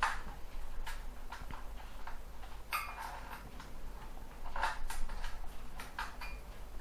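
Irregular light clicks and taps from a laptop's plastic casing and parts being handled during disassembly, with the louder ones about three and five seconds in.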